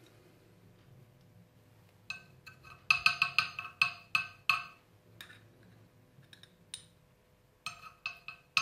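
Metal teaspoon clinking against a small glass jar while scooping out red fish roe: a few ringing clinks, a quick run of them about three seconds in, then scattered taps and another short cluster near the end.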